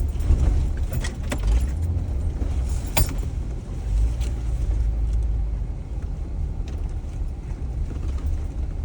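Jeep creeping slowly over a rough off-road trail: a steady low engine and drivetrain rumble with loose rattles and a few sharp clicks over the bumps.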